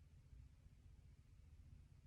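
Near silence: only a faint, steady low background rumble.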